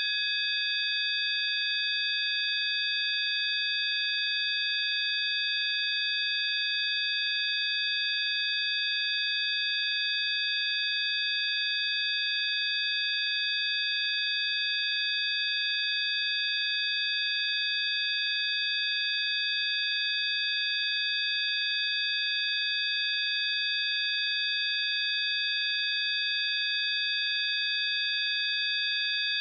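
Several steady electronic sine tones sounding together, high-pitched and completely unchanging: a synthesized 'healing frequency' tone drone.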